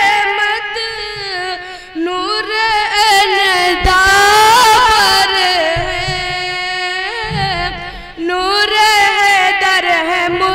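A boy's high voice singing an Urdu naat unaccompanied into a stage microphone, drawing out long melismatic notes with vibrato, with short breaks about two and eight seconds in.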